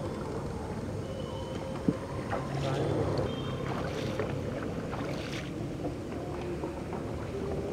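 Wooden boat moving on a river: a steady wash of water along the hull, with faint small knocks.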